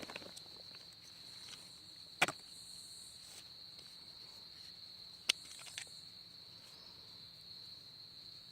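Steady high-pitched chorus of crickets, with a sharp click about two seconds in and another a little after five seconds.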